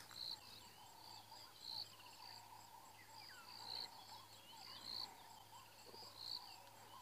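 Faint outdoor bush ambience: a high-pitched chirp repeating over and over, a few faint sliding bird-like calls, and a low steady hum underneath.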